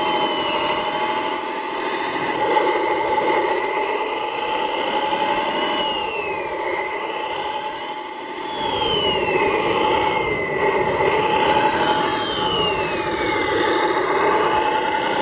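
Radio-controlled scale Jeep Wrangler JK crawler's motor and drivetrain labouring through loose sand. A steady whine runs under a lower tone that rises and falls in slow waves as the throttle and load change, and a high falling whistle sweeps down every few seconds.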